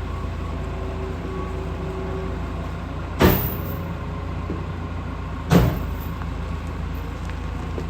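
Heavy vehicle engine running steadily at low speed, with two short loud bursts of noise about two seconds apart.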